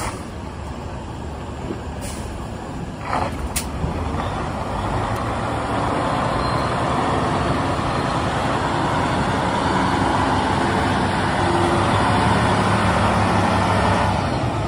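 Diesel engine of a 2014 Freightliner Cascadia tandem-axle road tractor idling steadily, growing louder toward the front of the truck, with a couple of short air hisses in the first few seconds.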